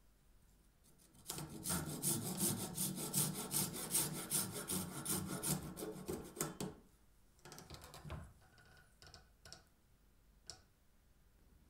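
Fine-toothed handsaw cutting through a peeled round wooden stick in quick, even strokes, about five a second, starting about a second in and stopping near the middle as the piece is sawn off. Afterwards, faint handling sounds and a single small click.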